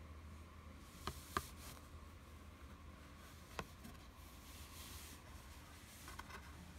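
Quiet handling of a board book's thick cardboard pages as one is turned: a few soft clicks and taps about a second in and again midway, with a little rustle, over a low steady hum.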